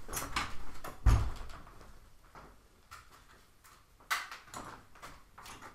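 A door thudding shut about a second in, then a sharper knock about four seconds in, with quiet room noise between, as someone leaves the room.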